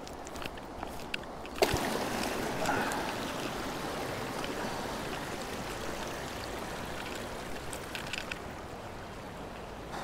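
Steady rush of stream water that sets in abruptly with a sharp knock about one and a half seconds in, then slowly eases. Before the knock, a scatter of light clicks.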